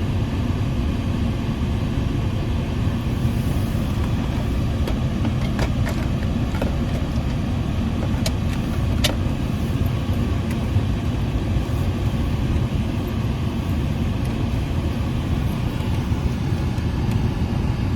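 Steady low rumble of a car running, heard from inside the cabin, with a few faint clicks in the middle.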